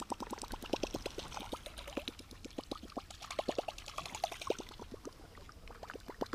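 Chaos Tackle Big Mama Lil Sister chopper-style topwater musky bait being worked at the boat. Its spinning blade gives uneven blips that break up into splashing and swishing water as the bait is swept through the water, then settle back into a quick, even run of about nine blips a second near the end.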